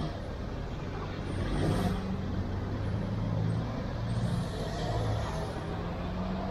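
Street traffic with a large vehicle's engine running steadily close by, over road noise.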